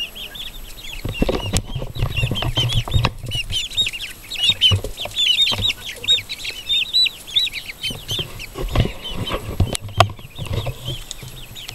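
Young chickens peeping over and over in short, high chirps, with wings flapping and low thumps and rustling as the birds scatter.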